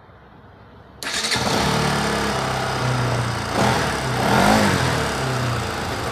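Bajaj Pulsar NS200's single-cylinder engine starting about a second in and settling to a steady idle, briefly revved about halfway through. It runs smoothly, with no chain rattle, after the timing chain and tensioner have been replaced.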